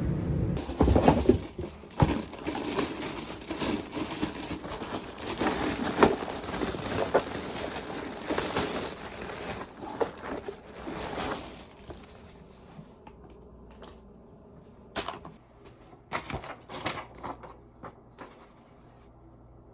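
Packaging being opened by hand: dense crinkling and tearing of wrapping for about twelve seconds, then quieter, scattered clicks and short rustles.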